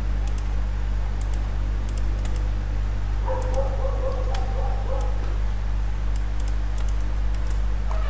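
Scattered clicks of a computer keyboard and mouse, a few keystrokes at a time, over a steady low hum.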